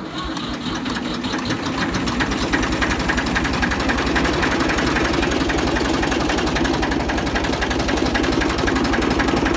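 Ford 2000 tractor engine catching at the start and settling into a steady idle, with an even run of firing pulses.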